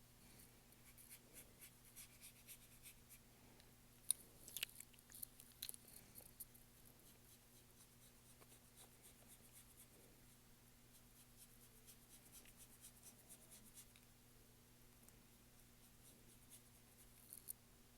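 Faint, repeated scratching and tapping of a paintbrush stroking and dabbing acrylic paint onto a canvas, with a cluster of louder strokes about four to six seconds in.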